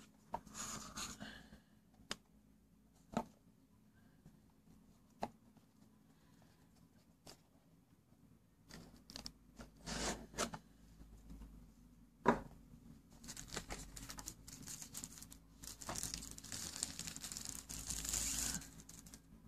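A cardboard phone box being handled and opened: scattered light taps and knocks, a brief rustle about halfway through, then plastic wrapping crinkling for several seconds as the phone is pulled out of its clear plastic sleeve.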